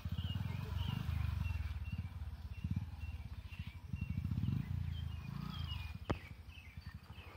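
Bajaj single-cylinder motorcycle engine running in low gear as the bike pulls away, its beat rising and falling with the throttle and fading toward the end as it moves off. Birds chirp over it, and there is one sharp click about six seconds in.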